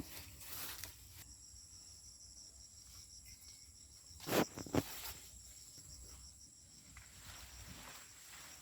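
Steady high-pitched chirring of crickets and other insects, with two short rustles or snaps from handling the vines a little past halfway.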